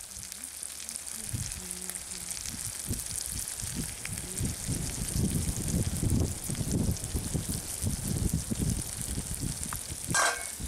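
Egg and drumstick curry sizzling in a pot over a wood fire, a steady hiss, with irregular low bumps as spice powder is sprinkled in. A short louder sound near the end.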